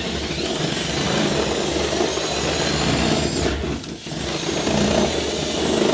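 Power drill with a 1/2 inch bit running, widening a too-small toggle-bolt hole in the wall by working the bit around in it. The drill eases off briefly about four seconds in, then runs on.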